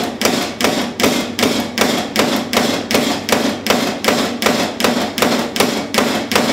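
Steady hammering on red-hot steel while forging a fuller groove: about three evenly spaced blows a second over a constant mechanical hum.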